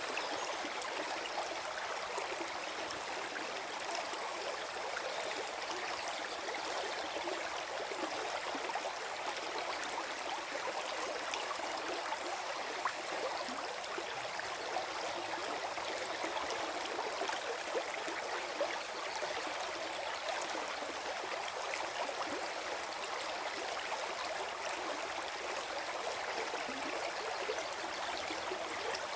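Small forest stream flowing and gurgling over stones: a steady babble of water, with many small splashes and trickles.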